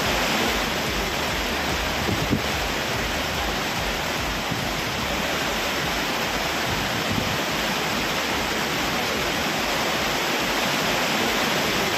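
Waterfall swollen by a flash flood: a steady, unbroken rush of falling water.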